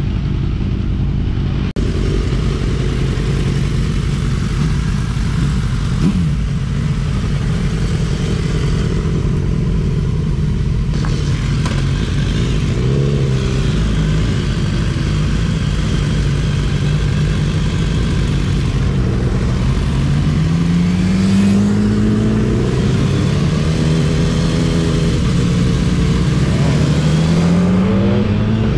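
Motorcycle engines running as a group of sport bikes rides through city traffic, with a steady engine drone that rises in pitch twice in the second half as the bike accelerates.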